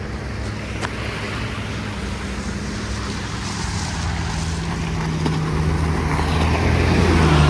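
A motor vehicle's engine running with a steady low hum, growing louder toward the end as it draws closer, over a haze of road and wind noise.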